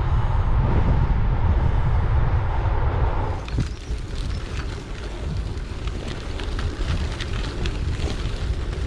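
Wind buffeting the action camera's microphone on a moving gravel bike, a loud low rumble that drops off suddenly about three seconds in. After that the ride is quieter, with light irregular ticks and crackles from the bike rolling along.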